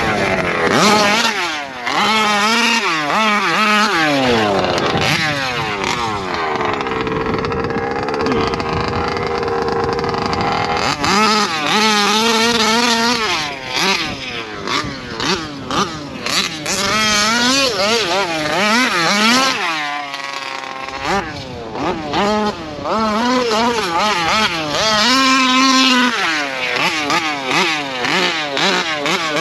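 Taylor RC 55cc two-stroke engine in a Losi 5ive-T 2.0 RC truck revving up and down over and over as it is driven, the pitch constantly rising and falling. Near the middle it holds a steadier, lower pitch for a few seconds, and about two-thirds through it drops low and then climbs in a sharp rising rev.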